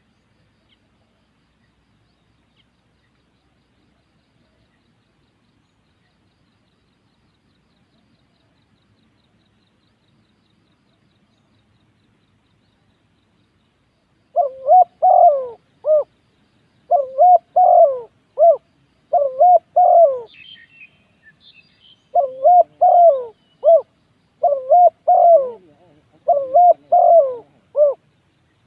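Spotted dove cooing. After about fourteen seconds of near quiet, it gives a run of repeated coo phrases, each of several rolling notes, with short pauses between phrases.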